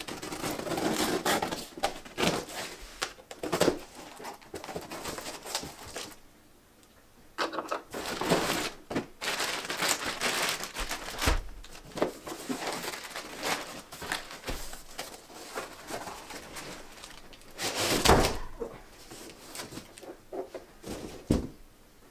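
Cardboard shipping box being opened and unpacked: scissors cutting packing tape, cardboard flaps scraping and rustling, and plastic-wrapped parts being pulled out, in irregular bursts with sharp clicks. About 18 seconds in comes one louder scrape.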